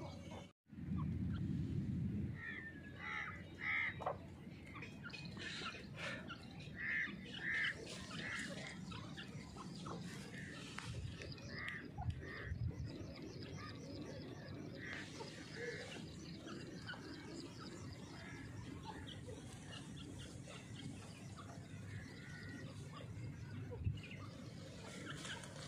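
Grey francolin's short call notes, repeated in small groups of two or three. A low rustling noise comes in the first couple of seconds.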